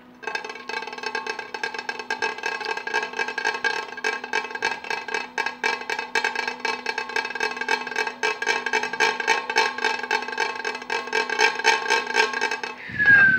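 A ceramic plate rattled rapidly against the soup plate beneath it, a fast, even clatter with the china ringing underneath, like a drum roll. Right at the end a whistle-like tone starts to fall in pitch.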